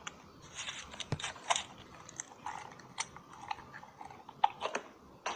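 Someone chewing and biting into crunchy food, likely a pepper: a dozen or so irregular crisp crunches and mouth clicks.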